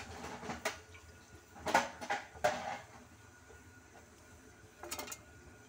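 Handling noises inside an under-sink cabinet: short clattering knocks and rustles as a hand works around the sink's plastic drain pipes, in three bursts, the loudest about two seconds in.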